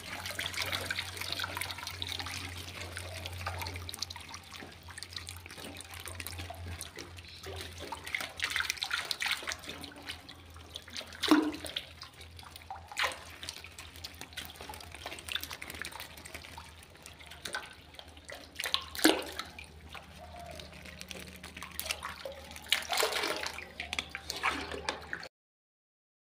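Water splashing and sloshing as live fish fingerlings are scooped and handled in a plastic basket in a pond, in irregular bursts, over a steady low hum. The sound drops out briefly near the end.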